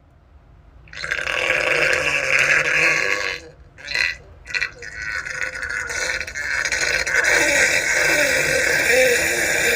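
A girl burping: one long, drawn-out burp of about two and a half seconds, two short burps, then a second long burp lasting about five seconds.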